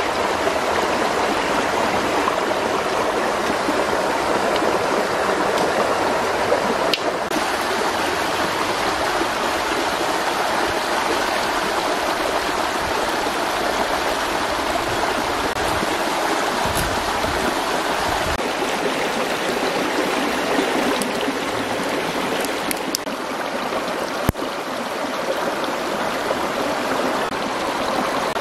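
Stream water running steadily over rocks.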